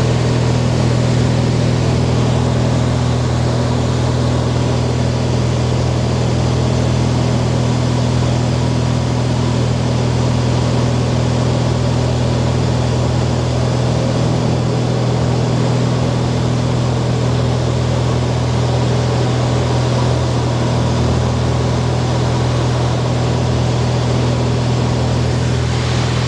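Cessna light aircraft's piston engine and propeller droning steadily, a constant low hum with a rushing noise over it that holds the same pitch and level throughout.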